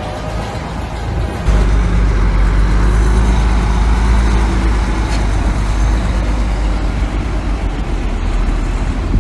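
Heavy diesel engine of a construction machine running under load, a steady deep rumble that grows louder about a second and a half in.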